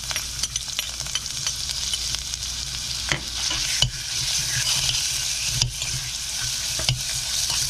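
Ground pork and minced garlic sizzling in sesame oil in an earthenware pot, with a metal spoon stirring and scraping against the pot in scattered clicks. The sizzle grows louder about four seconds in.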